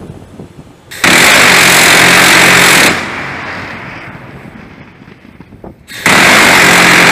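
Mk 15 Phalanx CIWS's 20 mm six-barrel rotary cannon firing two bursts of about two seconds each, each one unbroken sound rather than separate shots. The first starts about a second in, the second about six seconds in, with a fading echo between them.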